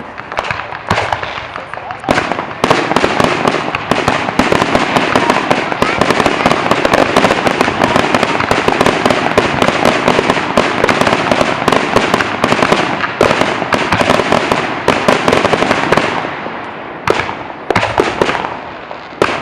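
Aerial fireworks going off in a rapid barrage of bangs and crackling. The bursts come thick and fast from about two seconds in and thin to separate bangs near the end.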